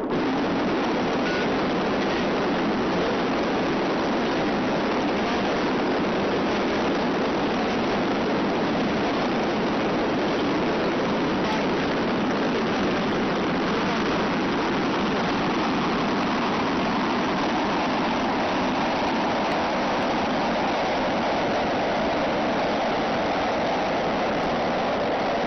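Long March 2C rocket's four-engine first stage firing at ignition and liftoff: a dense, steady rushing roar that starts abruptly and holds unchanged as the rocket climbs.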